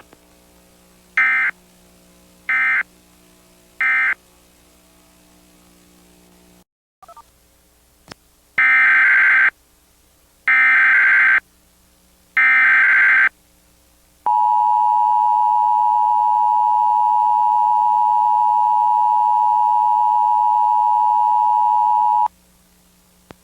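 Emergency Alert System data bursts and attention signal. First come three short end-of-message bursts of screechy digital tone, then, after a pause, three longer header bursts of about a second each. These are followed by the two-tone attention signal, a steady pair of pitches held for about eight seconds that cuts off near the end.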